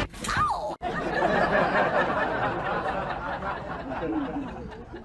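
People laughing and chattering over one another, after a brief sliding squeal in the first second.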